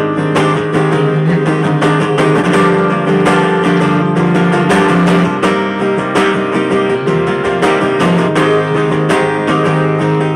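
Acoustic guitar strumming chords, with a second, electric plucked string instrument playing along. It is an instrumental passage with no singing.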